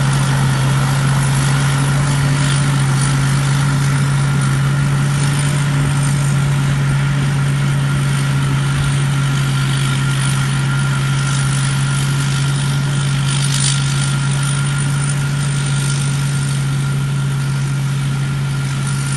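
Rice combine harvester engine running steadily: a constant low drone with a steady higher whine above it.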